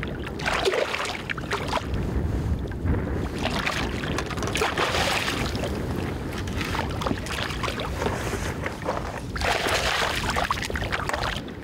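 A hooked fish thrashing and splashing at the water's surface in several bursts, the longest in the middle and another near the end, over steady wind noise on the microphone.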